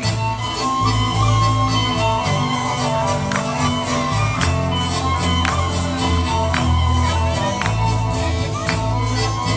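Traditional Albanian folk dance music with a steady beat, accompanying a dance troupe.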